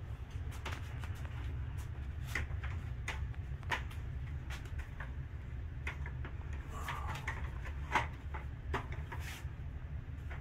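Light, irregular clicks and knocks of a cordless faux wood blind being handled and lifted up into its end brackets, with a sharper knock about eight seconds in, over a steady low hum.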